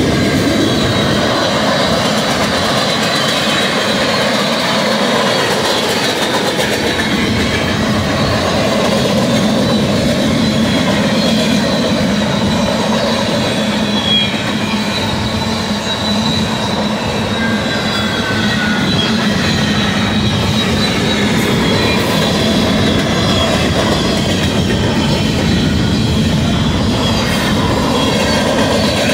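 Freight cars of a long manifest train rolling past: a steady, loud rumble and clatter of steel wheels on rail, with thin high wheel-squeal tones running over it and a short squeal gliding upward a little past the middle.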